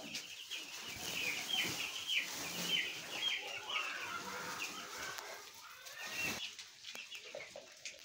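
A flock of chicks under two weeks old peeping: many short high chirps overlapping, thinning out about six seconds in.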